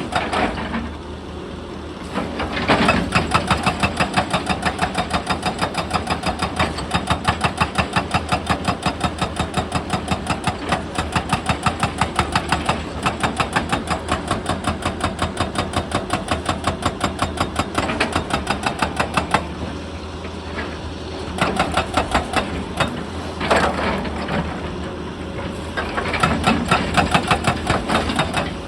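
Excavator-mounted hydraulic breaker hammering rock in a long run of rapid, even blows, several a second, over the excavator's running engine. It stops briefly, then hammers again in a few short bursts.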